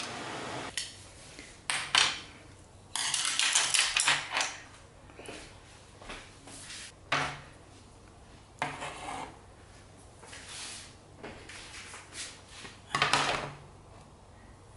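Tableware being set down on a lacquered tray and table: several separate knocks and clatters of bowls and utensils, with a longer scraping rub about three seconds in and a last clatter near the end as a ceramic bowl is put down. Under a second in, a steady hiss from the simmering pan of curry cuts off.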